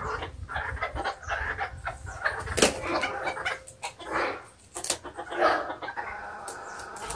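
Chickens clucking in short, scattered calls. A few sharp clicks come about two and a half and five seconds in.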